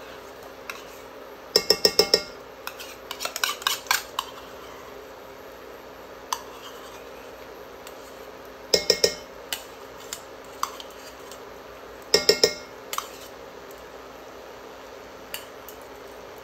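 A metal utensil scrapes thick tomato paste out of a stainless steel measuring cup, clinking against the cup and the saucepan rim. The clinks come in four short rattling bursts, with a few single clicks between them.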